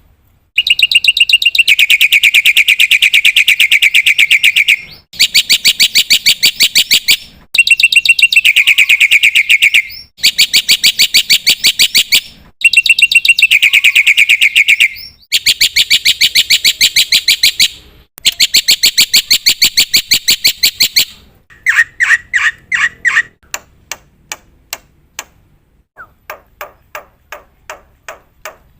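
Black-winged starling (jalak putih) singing loudly in long, very rapid high-pitched rattling trills, about seven in a row with short breaks between them. Near the end it changes to slower, separate chirps, a few a second.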